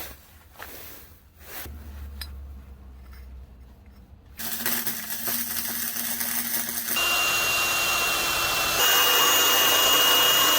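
Faint workshop handling sounds, then about four seconds in a power tool starts running loudly and steadily with a high whine, getting louder in two abrupt steps.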